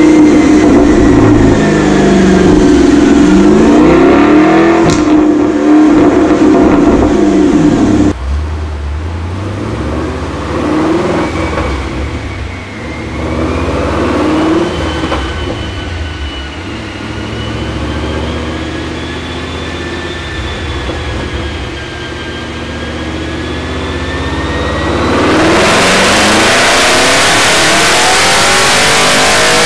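Chevrolet Camaro V8 revving hard on a chassis dyno, its pitch rising and falling several times. About 8 seconds in, a C5 Corvette V8 takes over, running more quietly on the dyno with a thin whine that climbs slowly. About 25 seconds in it opens up into a loud full-throttle pull mixed with dyno roller noise.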